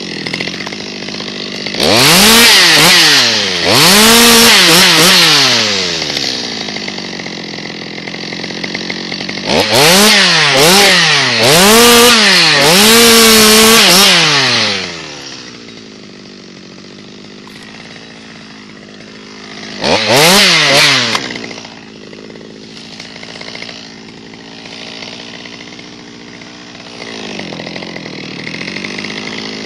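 Stihl MS 200T two-stroke top-handle chainsaw idling, then revved hard in bursts: twice a few seconds in, several times from about ten seconds in ending in a held high rev, and once briefly around twenty seconds.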